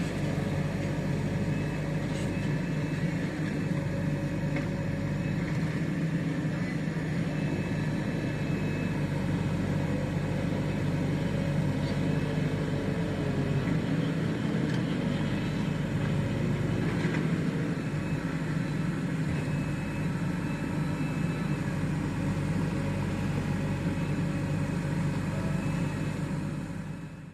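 Diesel engine of heavy machinery running steadily, with a constant low hum; the sound fades out just at the end.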